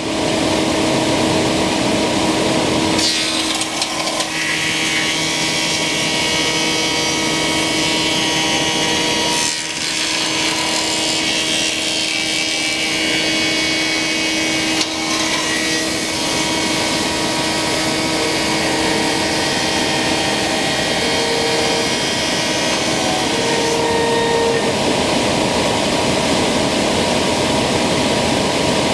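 Thickness planer with a Tersa-knife cutterhead running and planing black walnut boards, with the dust collection system running under it. The sound changes several times as the boards pass through.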